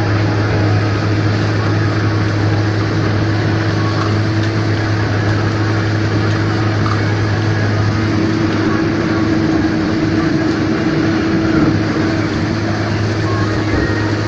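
Combine harvester running steadily during rapeseed harvesting, a constant engine drone with a strong low hum.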